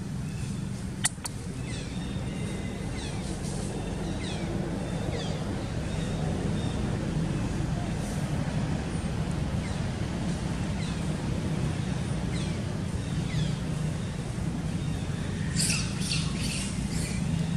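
Outdoor ambience of birds chirping and calling, short scattered chirps over a steady low hum. There is one sharp click about a second in, and a quick cluster of sharp squawking calls near the end.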